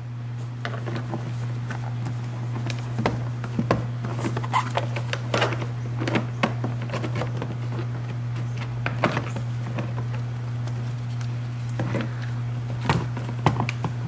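Plastic trim tool prying a power-window switch panel out of a door trim panel: scattered plastic clicks, knocks and scrapes as the panel's clips pop free, over a steady low hum.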